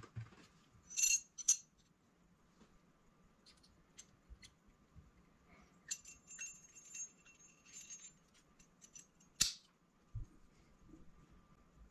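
Small metal turbocharger center-housing parts clinking and ringing briefly as they are handled and fitted together over a plastic parts tray, with a short ringing cluster about a second in, more clinks and rings from about six to eight seconds, and one sharp click about nine seconds in.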